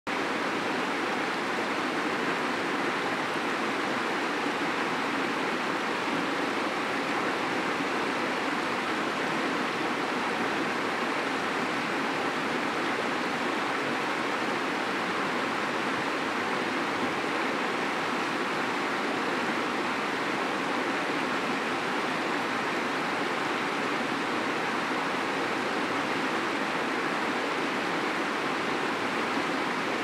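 Shallow river rushing over a stony bed in a riffle: a steady, unbroken rush of water.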